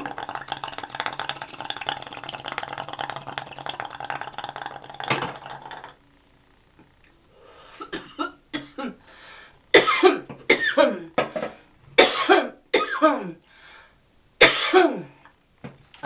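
Water in a glass bong bubbling steadily for about six seconds as a hit is drawn through it. After a short pause comes a string of about eight to nine loud, harsh coughs, the hardest near the end, as the smoke from the kief-loaded bong hit sets off her coughing.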